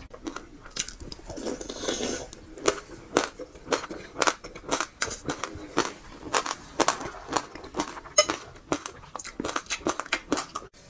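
Close-miked chewing of a mouthful of sesame seeds: a run of small, crisp crunches and clicks, a few a second and irregular.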